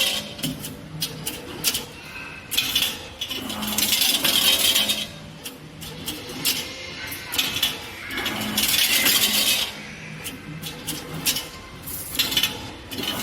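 Rotary-type 3D CNC wire bending machine working through its cycle: a burst of hissing and sharp metallic clicking and clinking repeats about every four to five seconds, with a low hum in between.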